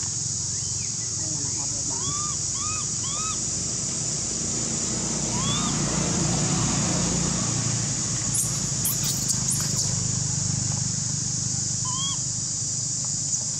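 Outdoor forest ambience: a steady high-pitched insect drone, with a handful of short rising-and-falling chirping calls, four in quick succession early on and one more near the end, over a faint low murmur.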